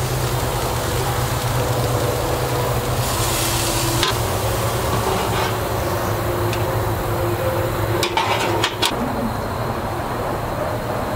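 Pork chops sizzling on a grill over a steady low rumble, with the grill's metal lid shut with a knock about four seconds in and a few more knocks a little after eight seconds.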